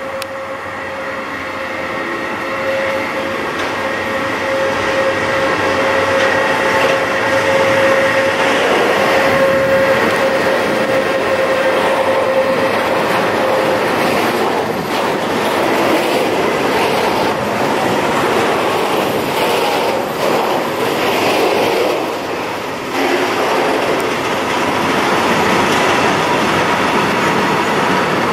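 A 111Ed electric locomotive passing at speed with a steady whine. About halfway through, a long train of tank wagons follows it past, rolling by with wheels clattering over the rail joints.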